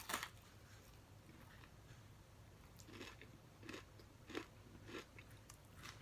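Faint close-miked eating: a person biting and chewing food, with a short sharp bite at the very start and a handful of short, crisp chewing sounds between about three and five seconds in.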